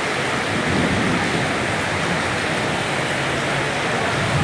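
Steady, even rush of water in heavy rain.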